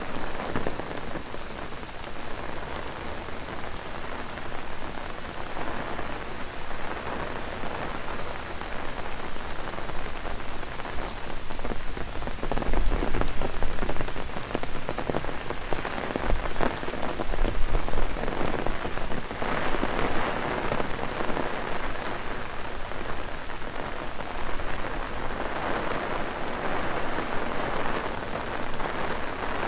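Heavy rain pattering on an umbrella, a dense rush of drops that grows louder around the middle, over a steady high drone of cicadas.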